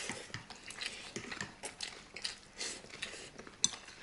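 Instant noodles in broth being slurped and chewed fast, with irregular wet sucking hisses and small smacks, and a sharp click a little before the end.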